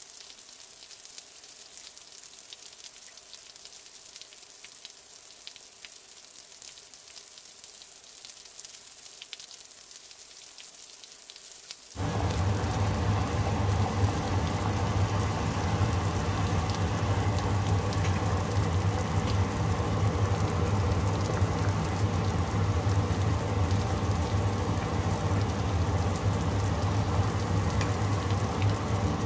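Faint hiss with light crackles, then, starting suddenly about twelve seconds in, a pot of soup boiling hard on the stove: a steady bubbling and crackling over a low hum.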